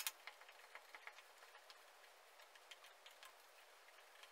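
Faint light clicks and ticks of a flat-head screwdriver pressing the rubber spline cord and mesh into the plastic screen frame's groove, many in the first second or so, then sparser.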